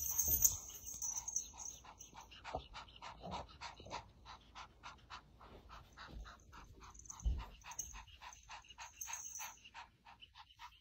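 Kitten panting rapidly with its mouth open, about four quick breaths a second, out of breath from play. A low thump comes about seven seconds in.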